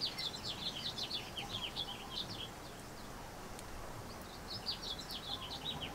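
A small songbird chirping in rapid runs of short high notes, two bouts with a pause of about two seconds between them, over a faint steady background hiss.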